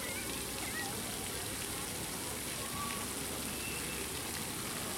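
Pond fountain spraying, its water falling on the pond surface as a steady rain-like patter. A few faint high whistled chirps come in the first second.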